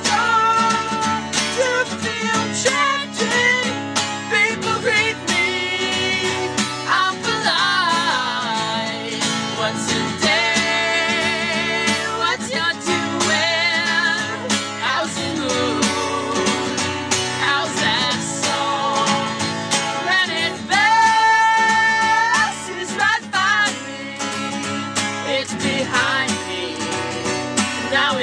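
Acoustic guitar strummed as accompaniment while men sing, with wavering held vocal notes and one long held note about three quarters of the way through.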